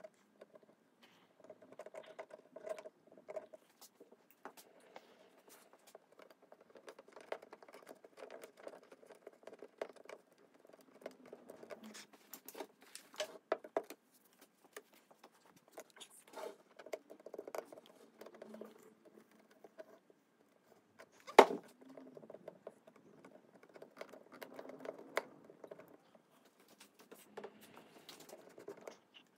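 Light scattered handling noises at a workbench as glue is squeezed onto a veneer patch and a clothes iron is set down on the wooden top to heat it: small taps, scratches and rustles, with one sharp click about twenty-one seconds in.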